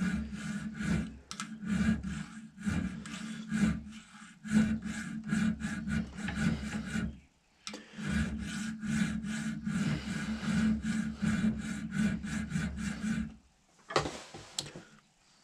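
Triangular file with one face ground smooth being stroked back and forth across the steel of an octagonal rifle barrel, cutting the 60-degree side of a dovetail slot by hand. The strokes come in a quick, even run, with a short break about halfway through and another near the end.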